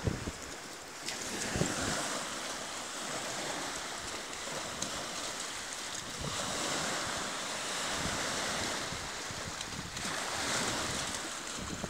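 Small waves breaking and washing up onto a sandy shore: a steady rushing wash that swells and eases every few seconds, with some wind buffeting the microphone near the start.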